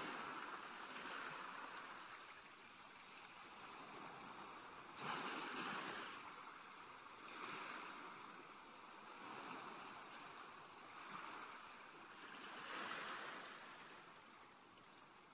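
Hand whisk stirring wet cake batter in a bowl as flour is mixed into the liquid: a soft swishing noise that swells and fades every second or two, loudest from about five seconds in.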